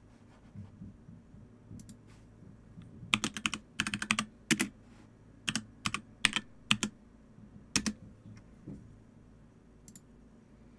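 Typing on a computer keyboard: short runs of quick, sharp key presses, loudest between about three and eight seconds in, with a few faint clicks before and a single click near the end.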